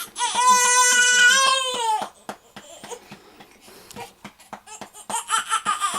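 Baby crying while being burped: one loud wail of about two seconds, then a few quieter seconds of soft taps, then a second, fainter wail starting near the end.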